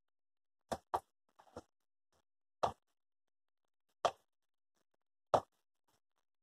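About six short, separate taps and plops, a second or so apart, from bacon strips being handled and dipped in wet batter and flour.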